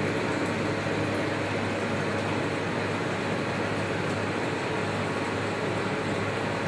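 BioPro 380 biodiesel processor running, its stirring motor and fan making a steady mechanical hum while it mixes methanol and catalyst into the oil in the main tank.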